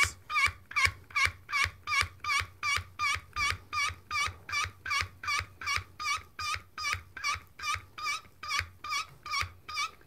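Hand pump of a Swage-It hydraulic crimping tool squeaking as its handles are worked in long strokes, a short high chirp repeated evenly about three to four times a second. The squeaking is the sign of hydraulic pressure building in the ram to crimp a sleeve onto 5/16-inch wire rope.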